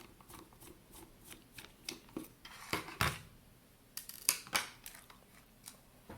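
Cheap plastic Vivitar T027 digital camera being taken apart by hand: a run of small, sharp plastic clicks and snaps, loudest about three seconds in and again around four and a half seconds in.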